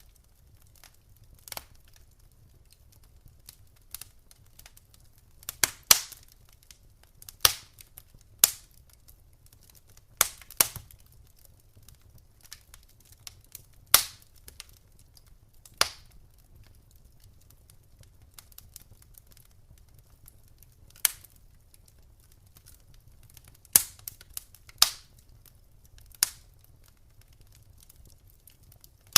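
Wood fire in a fireplace crackling: irregular sharp pops and snaps, a loud one every second or two with smaller ticks between, over a faint low rumble.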